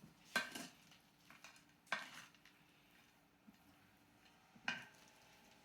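A cooking utensil knocking against cookware three times, each knock sharp with a brief ring, while the ingredients for the dressing are being combined.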